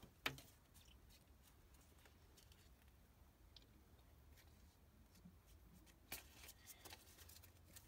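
Near silence with faint handling of trading cards: one sharp click about a quarter second in, scattered soft ticks, and a short run of small clicks and rustles about six seconds in.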